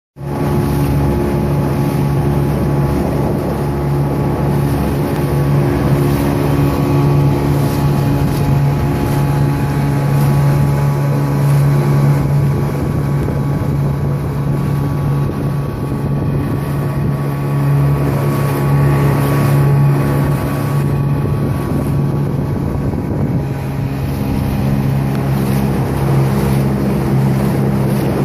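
A small river boat's motor running steadily under way, a constant drone, with wind noise on the microphone and water rushing along the hull.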